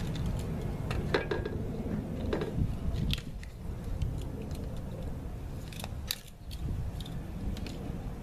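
Scattered clicks, knocks and scrapes of objects being handled, several sharp ones, over a steady low rumble.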